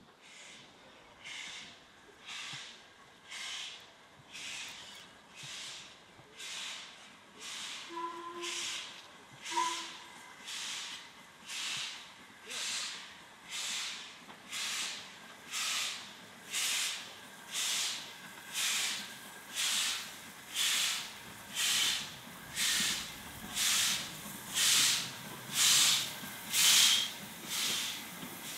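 Steam tank locomotive working slowly towards the listener, its exhaust beats chuffing about once a second and growing steadily louder as it approaches. Two short whistle-like tones sound about eight and ten seconds in.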